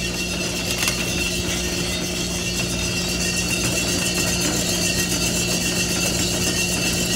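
Multi-barrel coffee sample roaster running mid-roast, before first crack: a steady mechanical drone with a constant hum and a thin steady high tone. A single light click about a second in.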